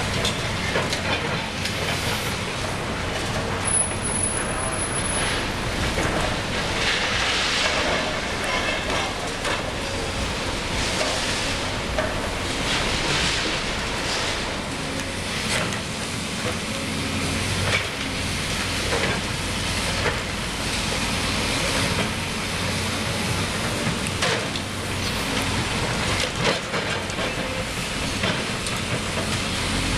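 Liebherr 954 long-front demolition excavator's engine and hydraulics running steadily, with irregular crunching, cracking and clatter of concrete and debris being broken and falling.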